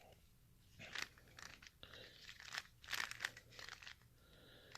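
Plastic Rubik's Cube layers being turned by hand: quiet runs of quick clicking and clacking in several bursts.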